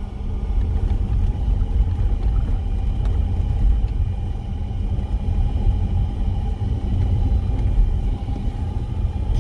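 Steady low road rumble of a car in motion, heard from inside the cabin, with a faint steady hum over it.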